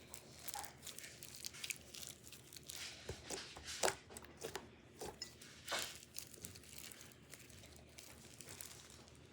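Plastic crinkling and crackling as it is handled, in irregular short bursts, loudest about four and six seconds in.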